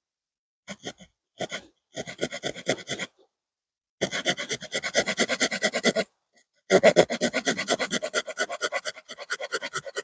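Small wood-saw blade of a Victorinox Swiss Army Knife Camper cutting a stick braced on a log, in quick short strokes. A few single strokes come first, then three runs of rapid sawing with short pauses between them.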